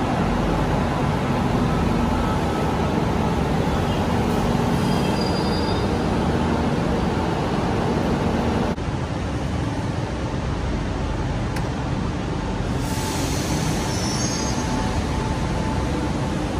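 Madrid Metro train running alongside the platform: a steady rumble of wheels on rail with a faint motor hum. About nine seconds in the sound changes abruptly, and near the end faint high squeals come in.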